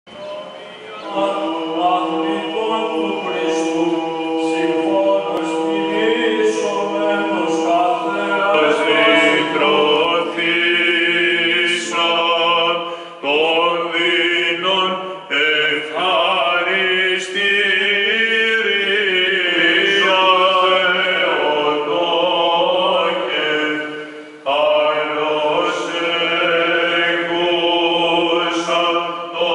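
Byzantine chant sung by a small group of male cantors, a moving melody over a steady held low drone (the ison), with brief pauses for breath.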